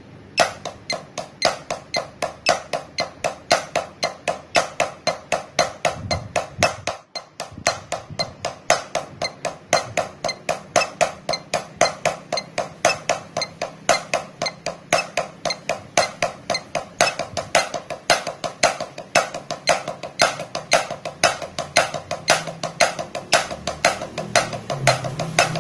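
Wooden drumsticks playing single strokes on a drum practice pad, even and sharp. The strokes come steadily faster as the subdivision steps up from eighth notes through triplets and sixteenths to sextuplets.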